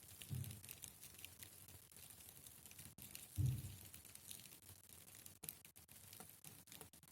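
White silkworms chewing mulberry leaves: a faint, dense crackle of tiny clicks and rasps as they rasp through the leaf edges. Two short low thuds, about half a second in and around three and a half seconds in, the second being the loudest moment.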